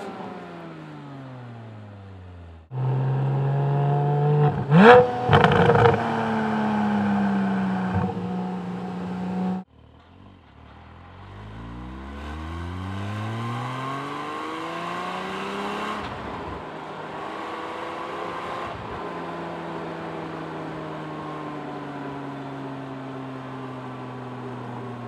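Porsche 718 Cayman GT4's 4.0-litre flat-six exhaust heard from outside the moving car: engine note falling as it slows, then a steady loud run with a brief burst of sharp cracks about five seconds in. After an abrupt cut it pulls up through the gears, pitch climbing and dropping at each upshift, then settles into a steady cruise.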